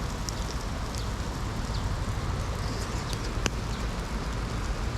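Steady outdoor background noise with a low rumble, typical of road traffic across the river, with a few faint high ticks and one sharp click about three and a half seconds in.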